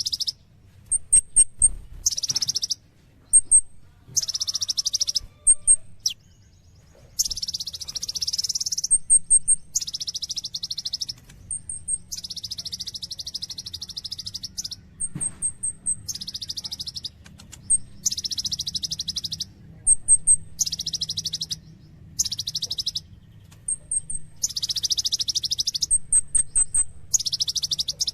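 Kolibri ninja sunbird singing rapidly and continuously: dense, buzzy, high-pitched trilled phrases of about half a second to a second and a half, alternating with short runs of two to five very high, thin chirps.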